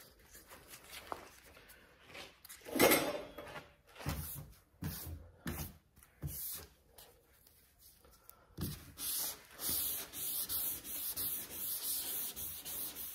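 A few knocks and handling sounds from a sanding block being set up. Then, about nine seconds in, hand block-sanding of primed truck bodywork begins: a run of even scrubbing strokes, about two or three a second.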